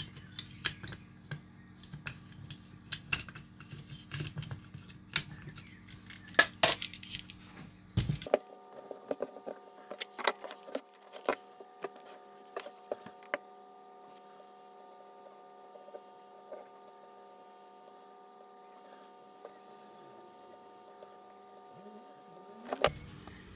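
Small clicks and taps of a circuit board being turned in a PCB holder and a soldering iron being handled, over a steady electrical hum. About eight seconds in, the low hum drops out and higher steady tones take over.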